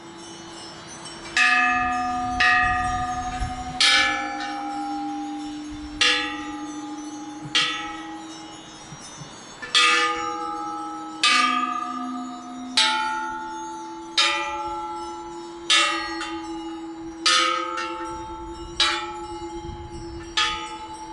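Thai temple bell struck repeatedly, about once every second and a half. Each strike has a sharp attack and leaves a long ringing hum that carries into the next.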